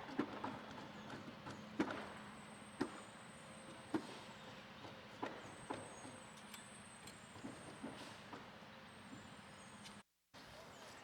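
Scattered sharp knocks and bangs from roofers at work on a roof tear-off, irregular and about a second or more apart, over a faint steady hum. The sound drops out briefly near the end.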